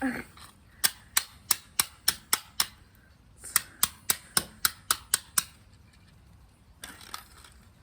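Hammer striking a plastic computer mouse casing in quick, sharp taps, about three a second: a run of about seven, a short pause, then about eight more.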